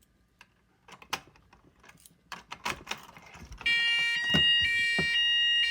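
Light clicks and handling knocks, then a little past halfway a fire alarm starts sounding: a loud electronic signal of several high tones that changes pattern about twice a second, with two dull thumps under it.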